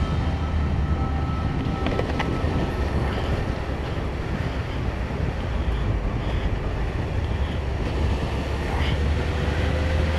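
Steady engine and wind noise of a motorcycle on the move, the engine's low drone under a constant rush of air.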